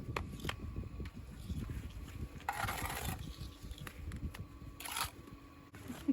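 Masonry work on a stone wall: a few light knocks at the start, then two short scrapes, one about two and a half seconds in and one near five seconds.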